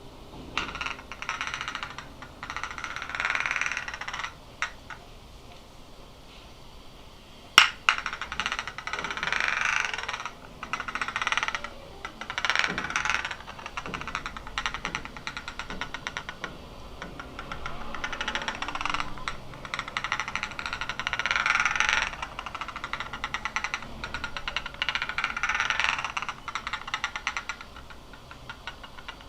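Two glasses rubbed or pressed together, giving a rapid run of tiny glassy clicks ('tic-tic-tic') that swells and fades in bursts of a second or two. One sharp, louder click sounds about seven seconds in.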